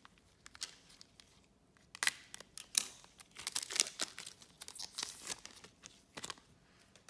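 Trading cards and their foil pack wrapping being handled: a run of short rustles, crinkles and tearing sounds, busiest from about two to five seconds in.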